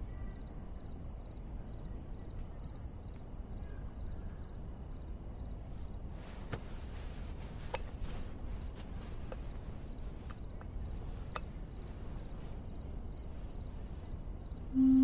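Crickets chirping in an even, repeating pulse over a low steady background rumble, with a few faint clicks midway. Right at the end a wind-instrument tune begins.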